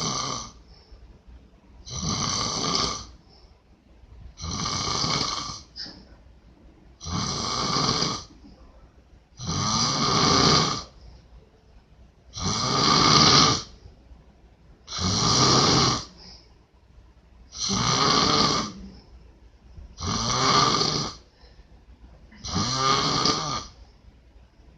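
A man snoring loudly in his sleep: about ten snores in a steady rhythm, each lasting about a second, one every two and a half seconds or so, with quiet between.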